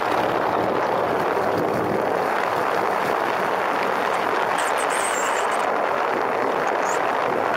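Motorcycle underway: a steady rush of wind on the camera, with the engine running evenly underneath.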